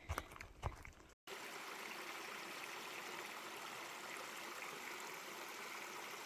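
Footsteps on a forest path for about a second. After an abrupt cut, a small stream runs with a steady, even rushing sound.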